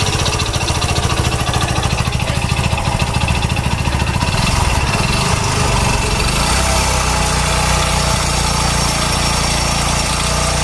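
Small single-cylinder motorcycle engine, a Hero Splendor, idling with a rapid even pulse. The sound settles into a steadier drone about five seconds in.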